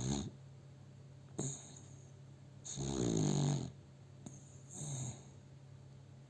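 Dog snoring in its sleep: about four snoring breaths, the longest and loudest, a buzzing rattle, about three seconds in.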